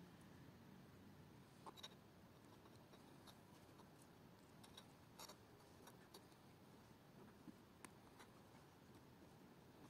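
Near silence: faint hiss with a few soft, scattered clicks of plastic jumper-wire connectors being handled and pushed onto pins.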